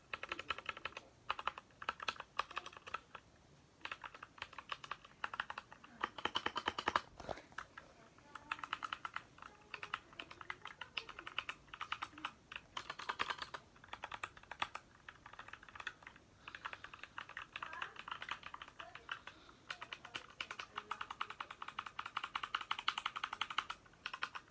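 Typing on a Royal Kludge RK61 mechanical keyboard with red linear switches: fast runs of key clacks broken by short pauses.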